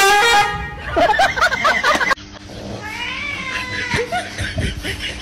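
A cat yowling loudly, a wavering, high-pitched caterwaul that cuts off abruptly about two seconds in.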